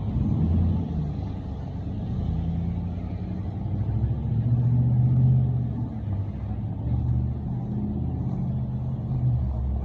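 A motor vehicle's engine running close by as traffic moves along the street, a low hum that swells to its loudest about halfway through.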